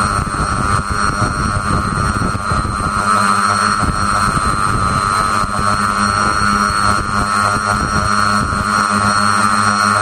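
Multirotor tricopter's three brushless motors and propellers running at hover power, heard from the camera mounted on the craft: a steady multi-tone motor whine. Under it is a gusty rumble of prop wash on the microphone, heaviest in the first few seconds.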